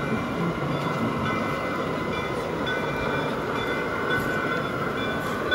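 Large-scale model geared logging steam locomotive (West Side Lumber Co. No. 12) running slowly on its track with its log cars. Its train sound plays over a steady, dense background noise.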